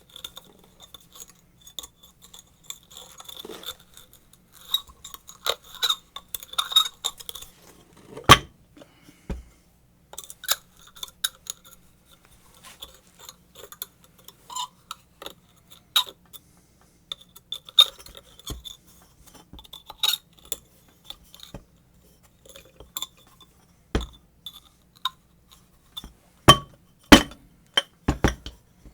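Metal tools and small metal parts of a submersible water pump's motor clinking, clicking and knocking irregularly as it is taken apart by hand, with one sharp knock about eight seconds in and several louder knocks near the end.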